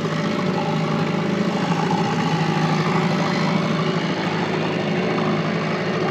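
Boat motor running steadily, pushing the boat along at trolling speed.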